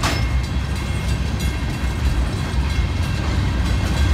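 Freight train of tank cars rolling past close by: a steady heavy rumble of steel wheels on the rails, with scattered clicks.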